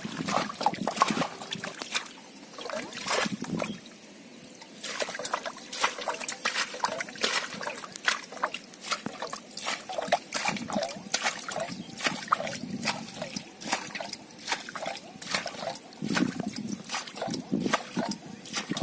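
Shallow muddy water splashing and trickling, a fast run of short wet clicks and splashes that eases off for a moment about four seconds in.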